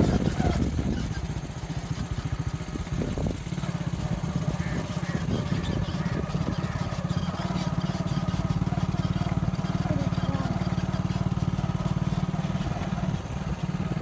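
Motorcycle engine running at a steady speed while riding, a low, even engine note.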